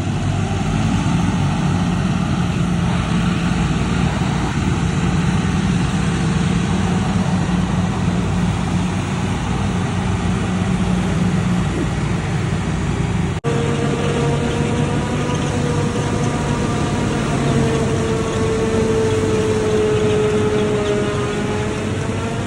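Heavy farm machinery engine running steadily at a constant load. About halfway through there is an abrupt break, after which a steady whine with a slowly drifting pitch rides over the engine noise.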